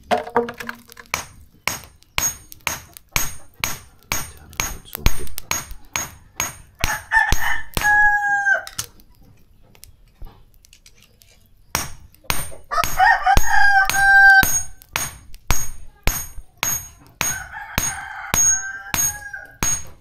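A rooster crowing three times, each crow held on one pitch and dropping at the end. Under it runs a steady series of sharp knocks, about two a second, that stop briefly between the first and second crow.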